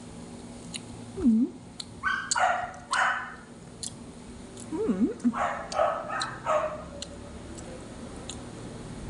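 Small dog barking and yipping in two short bouts, about two seconds in and again about five and a half seconds in, with brief whines in between.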